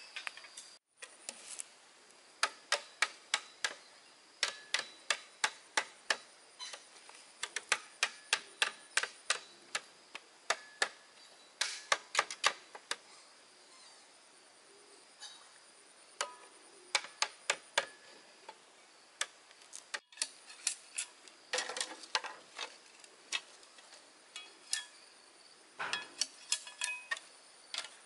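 Runs of sharp knocks, about three or four a second, stopping and starting, with a faint steady high insect drone behind.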